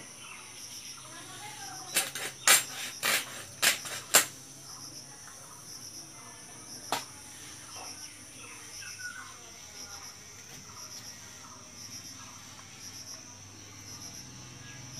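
Crickets chirring steadily. Over them, a cluster of about six sharp knocks and cracks comes two to four seconds in and one more near seven seconds, as a pangas catfish is cut up on a boti blade.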